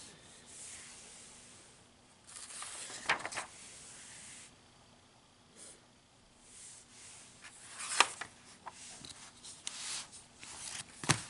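Glossy magazine pages being turned and handled: soft paper rustling with a few sharp snaps as the pages flip, then the magazine is closed and turned over near the end.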